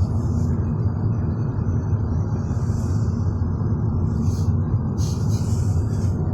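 Steady low rumble of road noise inside a moving car, with brief swells of hiss about halfway through and near the end.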